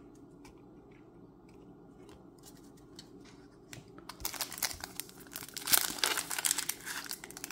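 Foil wrapper of a Magic: The Gathering play booster pack being crinkled and torn open, starting about four seconds in after a few faint clicks.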